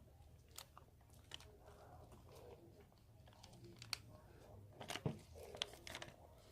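Faint, scattered small clicks and short crinkly rustles over a low steady hum, a few sharper clicks in the second half.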